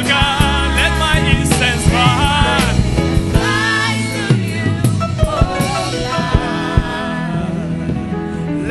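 Live gospel worship music: a band with drums plays while voices sing long, bending lines. The singing thins out about five seconds in and the band carries on.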